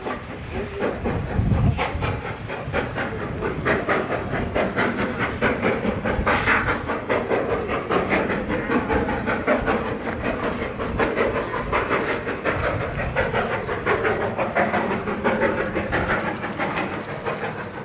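Steam-hauled train running past, its wheels clattering rhythmically over the rail joints with a hiss of steam; the sound eases slightly near the end.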